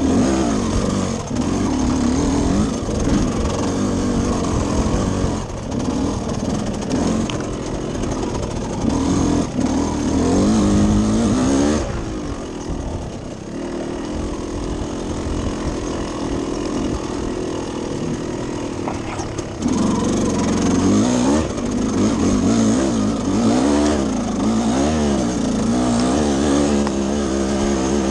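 Motocross bike engine revving up and falling back again and again as it is ridden hard. The engine settles to a quieter, steadier note for several seconds in the middle, then picks up again.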